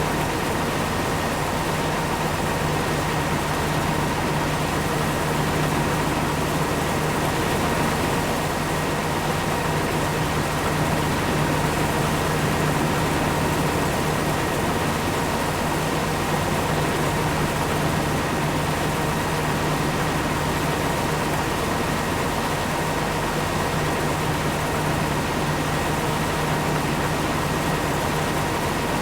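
Corn-harvesting machinery running steadily at constant speed: an engine's low hum with a steady whine on top and a dense mechanical rush, unchanging throughout.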